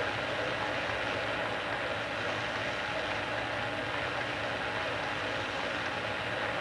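Steady rushing roar of the gas burner jets on a glassworking lathe, heating a large turning glass tube.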